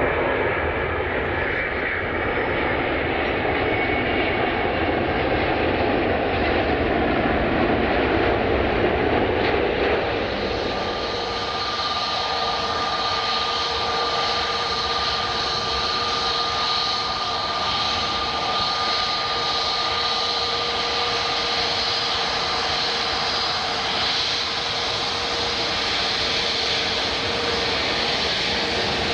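Jet airliner engines running: a broad rush of engine noise for about the first ten seconds, then a steadier engine whine with two held tones for the rest.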